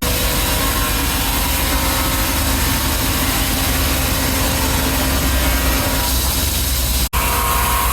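Sawmill machinery running steadily under engine power, a continuous loud mechanical drone. It breaks off for an instant about seven seconds in and resumes with a slightly different tone.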